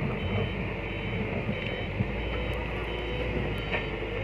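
Concrete mixer truck's diesel engine running as it manoeuvres, with its reversing alarm sounding a high beep that repeats at an even pace.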